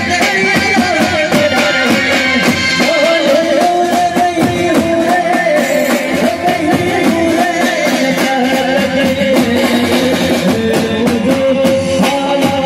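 Live Gujarati folk song played by a band: dhol and drum-kit beats keep a steady beat under keyboard melody, and a woman sings through the PA.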